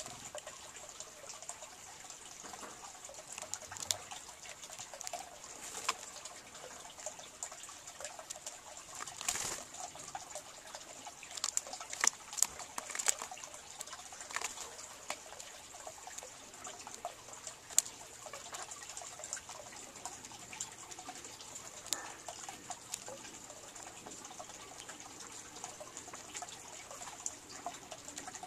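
Green jays pecking seed off a log: irregular sharp taps and clicks of the beak on the bark, thickest about ten to thirteen seconds in, over a steady high hiss.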